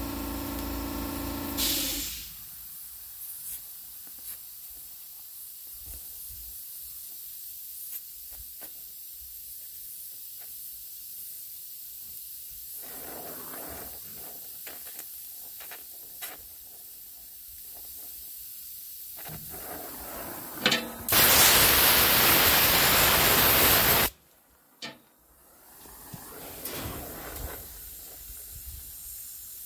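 Gas-welding torch flame hissing steadily as filler rod is fed into a steel flange joint on sheet metal. A steady hum stops about two seconds in. Later a much louder hiss lasts about three seconds and cuts off suddenly.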